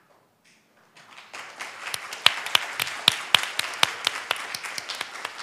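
Applause from many people, beginning about a second in and quickly building to steady clapping.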